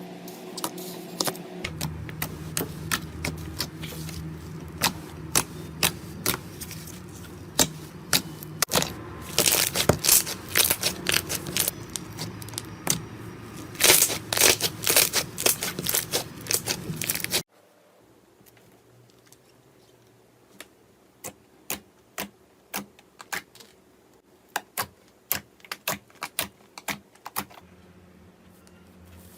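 Slime being squeezed and stretched by hand, giving rapid crisp clicks and crackles of popping air pockets, with a low steady hum underneath. About seventeen seconds in, the hum stops abruptly and sparser, quieter clicks follow.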